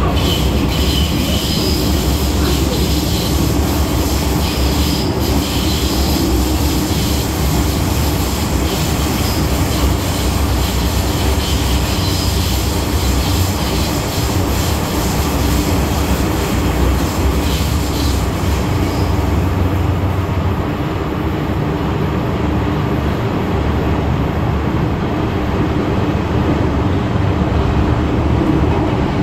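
MTR M-Train electric metro train running at speed, with a steady rumble of wheels on rail. A high-pitched wheel squeal comes and goes over the first two-thirds, then fades, with an occasional click from the track.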